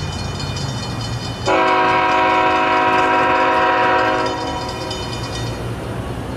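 Diesel freight locomotive's air horn, a GE ET44AH leading, sounding one long steady chord of about three seconds as the train approaches a grade crossing, over the low rumble of the oncoming train.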